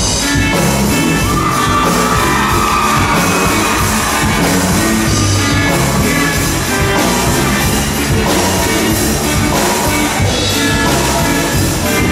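Live rock band playing loudly: electric guitars and a drum kit, with a singer's voice over the band.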